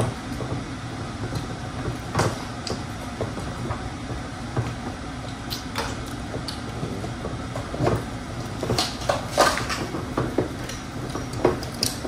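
Scattered knocks and clinks of household objects over a steady low hum, with the knocks coming more often near the end.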